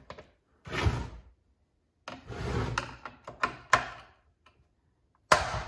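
Handling noise from a Stihl MS261C chainsaw being shifted on a wooden workbench while its top-cover clips are undone: rubbing and scraping, a few sharp clicks between about three and four seconds in, and a loud knock near the end.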